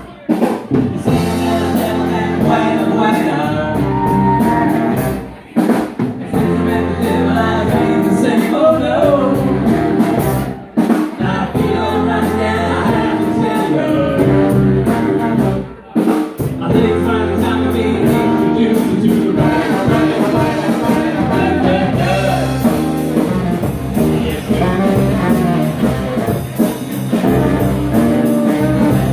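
Live band music, an instrumental passage in a blues-rock style with a horn, broken by short stops three times.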